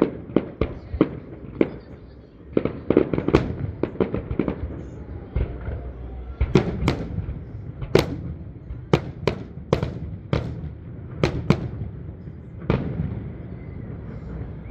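Fireworks display: a rapid, irregular string of sharp bangs and cracks over a low rumble, with a dense cluster about six to twelve seconds in.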